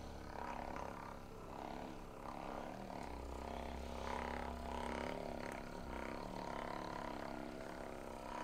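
Handheld percussion massage gun running against the back muscles, a steady motor buzz whose pitch dips briefly a couple of times as it is pressed in harder.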